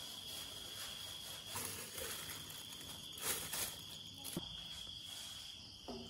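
Night insects, likely crickets, keep up a steady high-pitched chirring. A couple of short faint knocks come around the middle.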